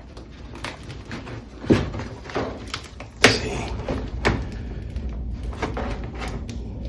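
Irregular knocks, clunks and scrapes as the clothes dryer and its vent duct are handled, with two sharper bangs about two and three seconds in.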